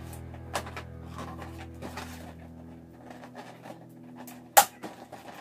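Latex balloon being handled and tied by hand: a few short rubbery snaps and squeaks, the sharpest and loudest about four and a half seconds in. Background music underneath fades out about halfway through.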